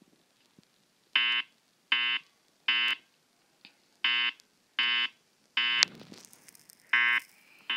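Wheelock E70 speaker strobe sounding its fire-alarm evacuation tone: a buzzy horn tone pulsed in the temporal-three pattern, three short beeps, a pause, then three more, with a third group starting near the end. It is the evacuation signal that alternates with the spoken message to leave the building.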